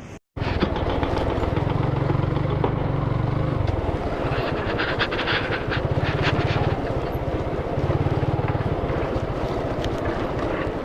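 Motorcycle engine running under way, with wind and road noise; the engine's low note swells and eases a few times.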